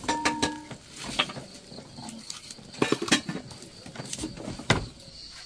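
About a dozen irregular knocks and clatters, with a faint steady high-pitched tone behind them.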